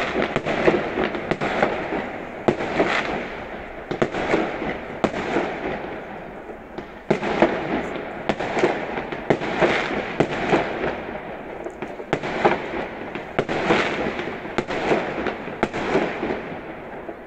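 Fireworks going off in a dense, unbroken barrage of bangs and crackles.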